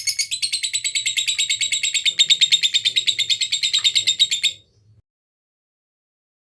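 Lovebird giving its long ngekek call: a fast, unbroken chattering trill of sharp, high notes. It stops abruptly about four and a half seconds in.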